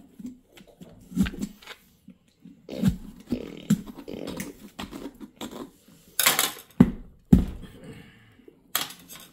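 Plastic pumpkin scoop scraping and knocking inside a pumpkin as the pulp and seeds are scooped out: irregular knocks and scrapes, several each second at the busiest.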